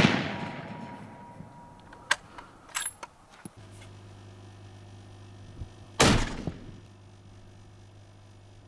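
A single rifle shot about six seconds in, its report echoing away over about half a second. Earlier, the echo of a previous shot fades out, followed by a few small clicks and a clink.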